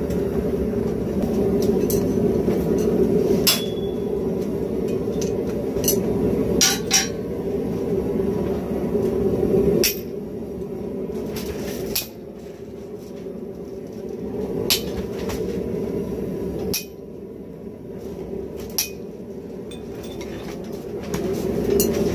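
Scattered sharp metallic clinks and taps, a second or more apart, as a hot spring-steel razor blank and a touch-mark stamp are handled and struck on a steel anvil, over a steady low hum.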